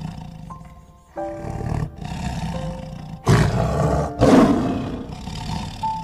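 Tiger roaring, with the two loudest roars about three and four seconds in, over background music.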